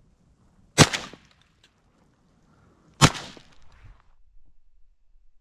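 Two 28-gauge shotgun shots, about two seconds apart, each a sharp crack with a short trailing tail.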